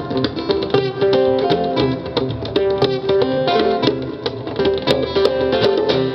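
Live acoustic guitars playing an instrumental passage: quick picked notes and strums over a steady rhythm.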